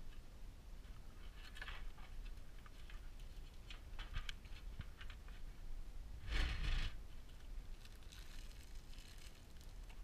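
Hands handling a PC case and parts: scattered light clicks and taps, a louder scrape about six and a half seconds in, and plastic rustling near the end.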